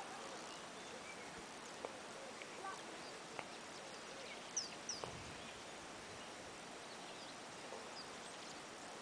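Quiet open-air ambience: a steady faint hiss with a few short, high bird chirps scattered through it, the clearest two about halfway through.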